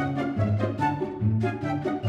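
Upbeat background music with a steady beat and a bouncing bass line.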